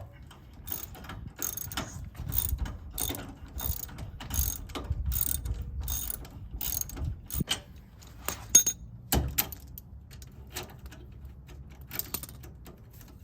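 Ratchet wrench clicking in quick back-and-forth strokes, about two a second, tightening the bolt of a trailer strap bracket; the strokes thin out after about seven seconds, with a sharper click near the end.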